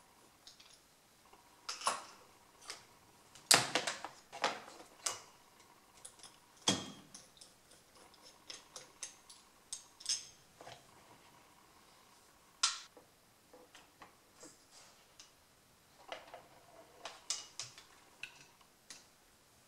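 Irregular light clicks and small metallic knocks of the Kawasaki KVF 300 carburetor's parts and float bowl being handled as it is taken apart by hand, with a few louder knocks among them.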